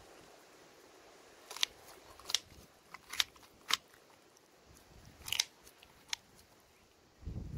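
Kitchen scissors snipping through the soft gills of an elephant fish's head: about six short, sharp snips spaced irregularly over several seconds.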